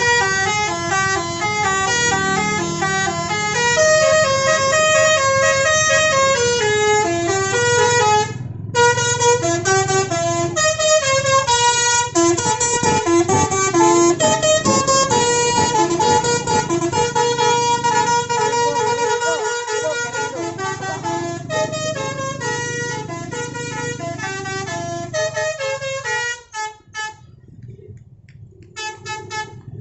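Bus basuri telolet horn playing a long, loud melody of quick stepping notes, with a brief break about eight seconds in. The tune breaks off about 26 seconds in, and a few short toots follow.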